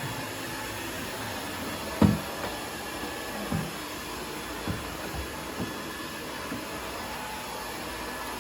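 Cordless stick vacuum cleaner running steadily while vacuuming, with a few knocks over it, the loudest about two seconds in.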